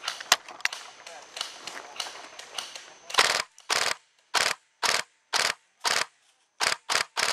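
Airsoft gun fire: scattered sharp pops and clicks, then from about three seconds in about ten short bursts of automatic fire, roughly two a second.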